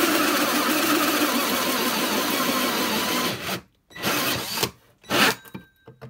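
Cordless drill running a 52 mm hole saw through a panel, cutting steadily, then stopping a little over three seconds in. Two short bursts of the drill follow.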